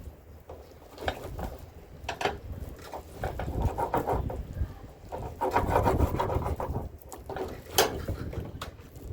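Irregular scraping and rubbing strokes of a knife working on rockfish on a cutting board, each stroke lasting up to about a second.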